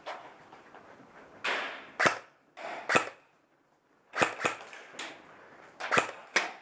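Airsoft guns firing single shots: about eight sharp cracks, irregularly spaced, from about two seconds in to the end, some in quick pairs.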